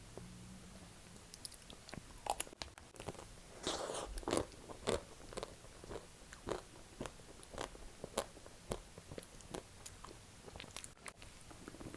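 Eating chocolate-coated ice cream: biting, crunching and chewing, with irregular crunches and mouth clicks starting about two seconds in.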